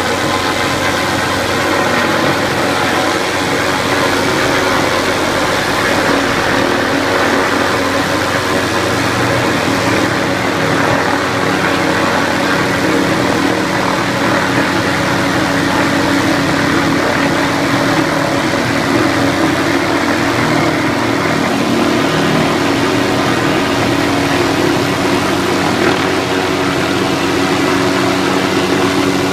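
MD 500-type light turbine helicopter flying and hovering steadily, its rotor and engine making a constant drone with a fixed pitch.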